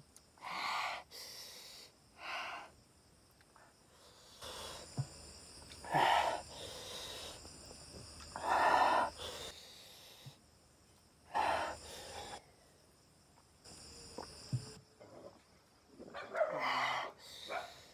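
A man's sharp hissing and puffing breaths through the mouth between mouthfuls, a burst every second or few at irregular intervals: the burn of eating king chilli curry.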